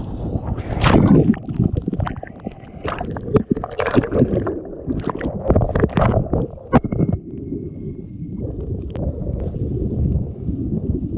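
Breaking surf crashing over and around a kayak's bow as it is pushed out through the breakers, whitewater slapping the hull in a run of sharp splashes, with a wave washing right over the camera about six seconds in. The splashes ease after about eight seconds to a steady rushing wash of water along the hull.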